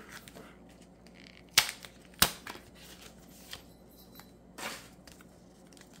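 Two sharp taps about half a second apart, with faint rustling, from handling a Pokémon booster pack and cards on a table.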